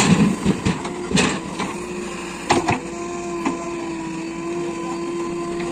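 JCB 3DX backhoe loader's diesel engine running with a steady whine, with several sharp knocks and clatters in the first few seconds, then an even run.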